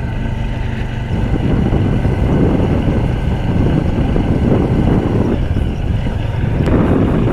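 A motorcycle in motion: the engine runs steadily under a low rumble of wind buffeting the microphone, and the sound grows a little over the first couple of seconds.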